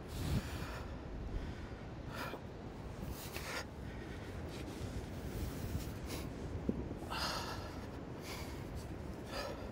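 A man breathing hard with several short, heavy exhales as he strains to lift and balance a heavy round boulder, over a steady low background rumble.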